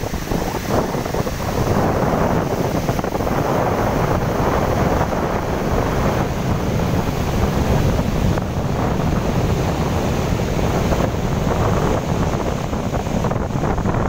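Steady rushing of a large waterfall in flood, its heavy volume of muddy water pouring into a plunge pool, mixed with wind buffeting the microphone.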